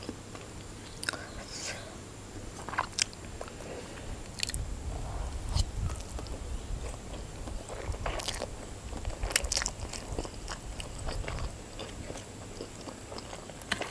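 Close-miked mouth sounds of a person eating instant noodles: chewing and biting, with scattered sharp clicks and a low rumble through the middle.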